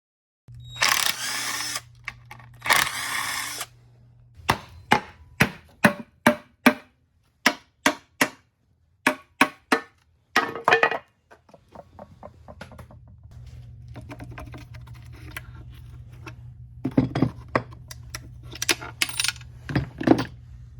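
Hand tools working on a Kohler Courage small engine during a teardown. Two short bursts of noise come first, then a quick run of sharp metal knocks and clanks. After a lower stretch of scraping and handling, more knocks come near the end. This is the sound of working a rust-seized piston loose.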